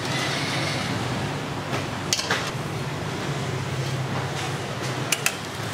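Steady low kitchen hum with a soft hiss in the first second. Utensils clink against ceramic bowls, twice about two seconds in and twice more near the end.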